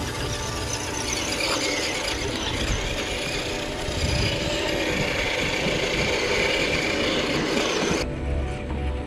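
RC4WD C2X scale crawler driving over loose sand and stones: its electric motor and geared drivetrain whining, mixed with the noise of the tyres on the dirt. The sound drops off abruptly about a second before the end.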